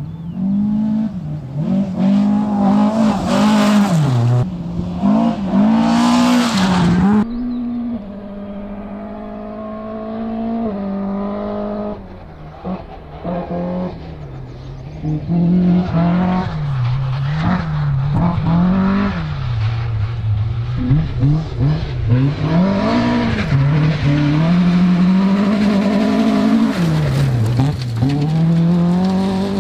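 Rally car engines revving hard as cars race along gravel stages, the pitch climbing and dropping again and again with each gear change and lift. A loud gritty hiss of tyres and flung gravel joins in during the first several seconds as a car passes close.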